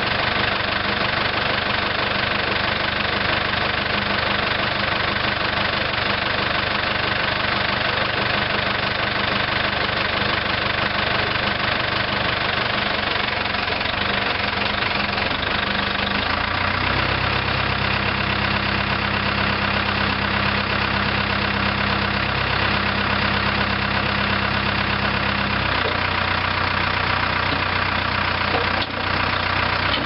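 The 1999 New Holland LB75 backhoe's 70 HP diesel engine running steadily. Its low running note changes about halfway through, and there is a brief click near the end.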